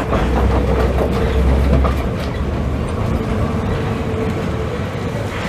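An old FVV 'Bengáli' tram rolling slowly past at close range, its wheels clicking over rail joints and points, with a steady running hum. A deep rumble falls away about two seconds in as the tram moves off.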